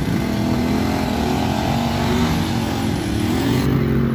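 Harley-Davidson Pan America 1250's V-twin engine running, its revs wavering up and down over a steady rushing noise.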